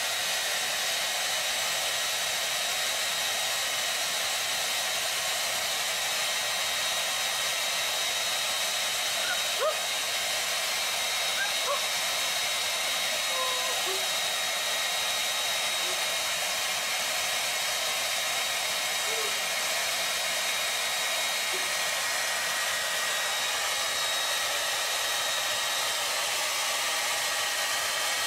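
Handheld hair dryer running steadily: a constant rush of blown air with a steady high motor whine.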